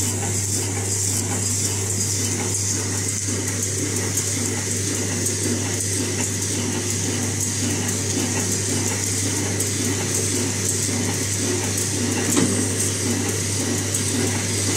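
Automatic cutlery packaging machine running steadily, a constant mechanical hum with a rattling, clattering cycle of moving parts and one sharper click near the end.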